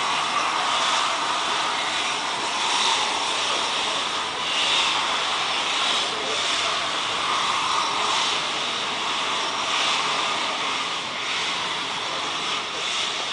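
Steam locomotive venting steam: a loud, steady hiss that swells and eases every second or two.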